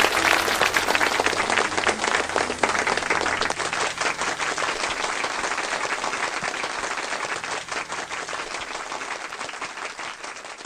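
Audience applauding, the dense clapping gradually dying away.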